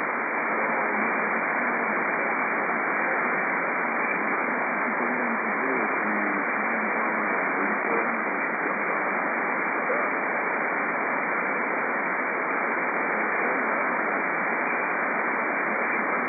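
Steady hiss of a shortwave receiver on an empty lower-sideband (LSB) channel around 4035 kHz, held within the narrow voice band of the SSB filter, with only faint wavering traces of weak signals in the noise.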